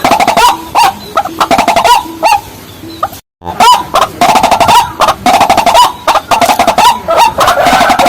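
Rail calling: a fast run of loud, hollow clucking and knocking notes repeated over and over, cut by a brief total dropout a little past three seconds in.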